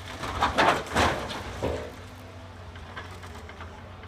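Demolition excavator breaking up a building's roof: a cluster of loud crunching crashes of breaking material in the first two seconds, over the steady low hum of the machine's engine.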